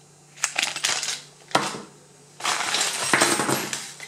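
Small metal locks and keys clinking against each other and onto a wooden tabletop, several sharp separate clinks. In the second half, a couple of seconds of rustling packaging with a few more clinks mixed in.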